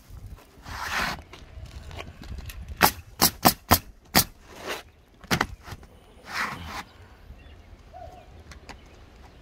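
Pneumatic coil roofing nailer firing nails into asphalt shingles: a quick run of about six sharp shots, starting about three seconds in. Brief scraping sounds come before and after the shots.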